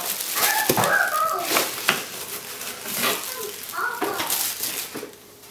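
A boxed lens being slid out of its packaging: cardboard and foam scraping, with short squeaks and a few knocks.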